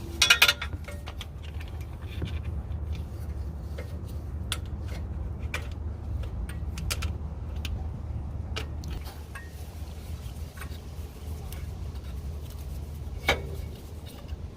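Scattered metallic clicks and taps of hand tools and brake parts being handled at a caliper during a brake pad change, with a loud clatter just after the start and a sharp knock near the end, over a steady low hum.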